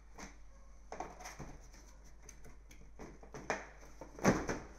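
Cardboard packaging being handled by hand: the flaps and white card inserts of a CPU cooler's box rustle and scrape, with scattered light knocks and a louder thump about four seconds in.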